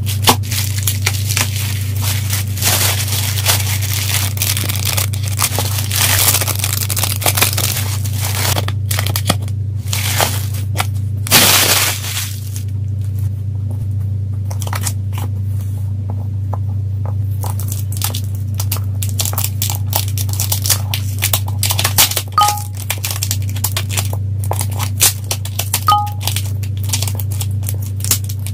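Packaging being handled and opened: plastic wrapping crinkling and tearing with scattered clicks and scrapes, and one longer tearing rasp near the middle, over a steady low hum.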